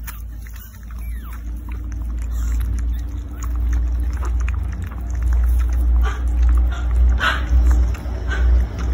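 Pomeranian mother and puppy lapping goat milk from a bowl: quick, irregular wet clicks over a steady low rumble.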